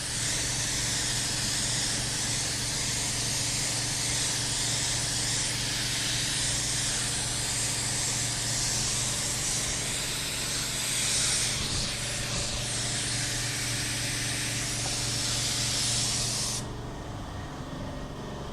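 Compressed-air paint spray gun spraying clear coat onto a plastic bumper: a steady hiss of air and atomised coating that cuts off sharply about 16.5 seconds in when the trigger is released.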